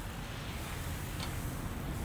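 Low, uneven wind rumble on the microphone over a steady hiss, with one light click of metal grill tongs about a second in.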